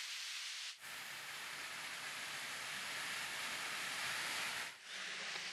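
Steady rush of the Okehi waterfall, a thin artificial garden cascade falling down a rock face into a pond, with two brief dropouts, about a second in and near the end.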